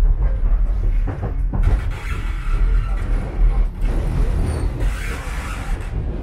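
Interior sound of a Sheffield Supertram running along the track: a steady low rumble of wheels on rail, with rattling and a few knocks about a second in.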